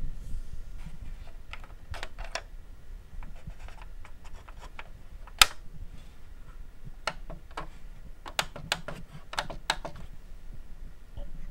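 Irregular sharp clicks from a Panasonic NV-HD635 VCR as its front-panel power and eject buttons are pressed, over a low steady hum. The loudest click comes about five and a half seconds in, with a run of quicker clicks from about seven to ten seconds.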